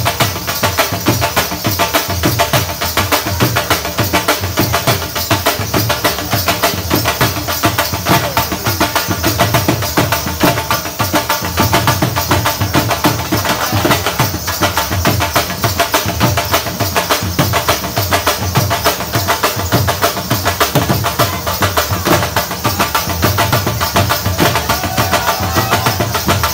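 Dhol drums beating a fast, steady Qalandari dhamal rhythm without a break.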